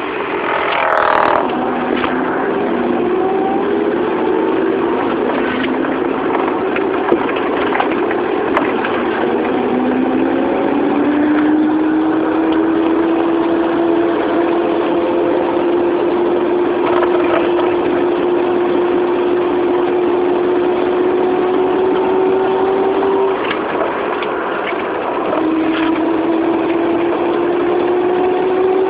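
A 1994 Proton Saga 1.5L manual running under acceleration, with a weird spinning whine over the engine noise. The whine is a single tone that slowly climbs in pitch as the car gathers speed. It breaks off with a brief drop in loudness about two-thirds of the way through, then returns and climbs again.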